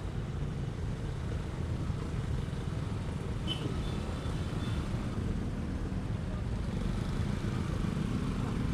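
Motorcycle riding in slow city traffic: a steady low rumble of engine and wind on the camera microphone.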